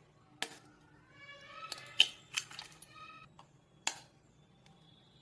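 A few sharp clicks and knocks, four of them distinct and the loudest about two seconds in, with a faint high-pitched voice-like sound between them.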